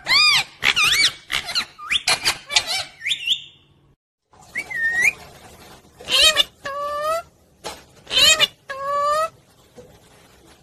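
Pet parrot calling: a quick run of shrill squawks and chirps that bend up and down in pitch, a brief pause, then a few longer, wavering calls before it goes quiet near the end.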